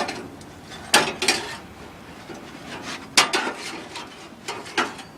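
Metal clinks and scrapes on a barbecue grill as a pizza is turned on the grate, in short separate strokes: two close together about a second in, two more past the three-second mark, and two near the end.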